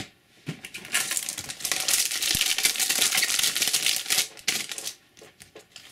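The foil wrapper of a Topps Match Attax booster pack crinkling and tearing as it is opened by hand, a dense crackle lasting about three seconds. Softer clicks of cards being handled follow near the end.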